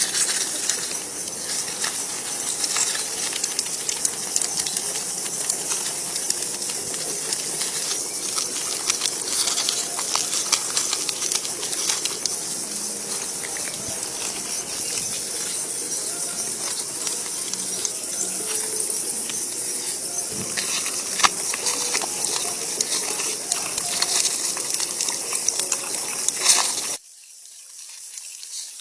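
A steady high-pitched hiss sprinkled with small ticks and clicks, which cuts off suddenly near the end and leaves a faint hiss.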